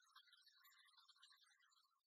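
Near silence: only a faint, garbled hiss.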